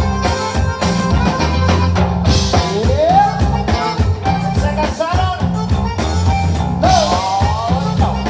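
Live conjunto band music: button accordion, guitar, bass and drum kit playing a steady beat, with a singer's voice coming in about two and a half seconds in and again near the end.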